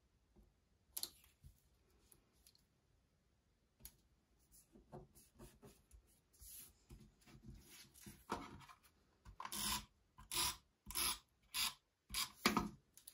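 Paper strips rustling and being pressed flat onto a paper page, with scattered light taps. In the last few seconds a quick series of about six short strokes follows as a tape runner lays adhesive.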